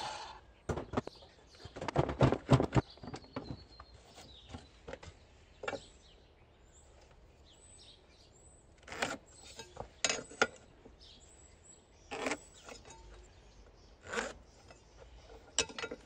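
A circular saw dies away at the start. Then pine offcuts clatter as they are swept off the bench, followed by scattered light taps and scrapes as a metal speed square and pencil are set on and drawn across a grooved decking board.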